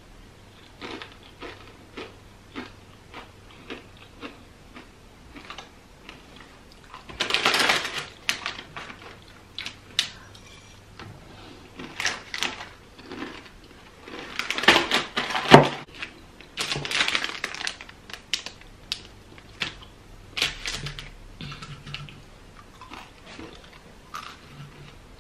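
Crunchy plantain chips being bitten and chewed close to the microphone: crisp crunches about twice a second, with several louder, denser stretches of crackling in the middle.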